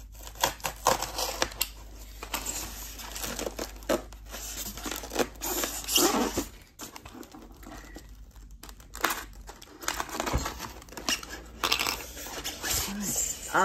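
Parcel packaging being torn open and crinkled by hand: irregular crackles, rips and rustles.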